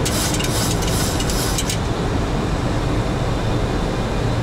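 Steady rushing flight-deck noise of a Boeing 737NG in flight on approach, the airflow around the cockpit. For about the first second and a half a higher hiss sits on top of it, then stops.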